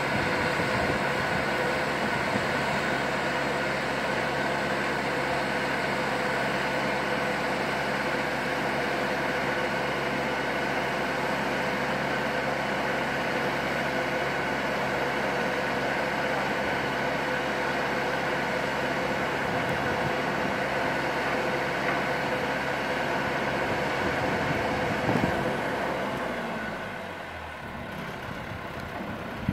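Boat travel hoist's engine running steadily. Near the end it slows and the sound drops.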